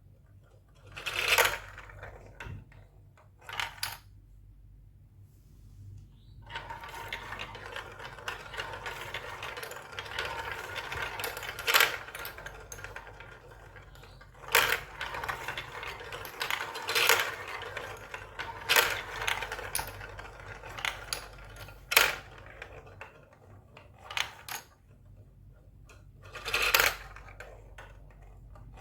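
Marbles rolling and clattering down a Lego Duplo block marble run. A couple of sharp clacks come first, then from about six seconds in a long rolling rumble with many clicks and knocks, thinning out to a few separate clacks near the end.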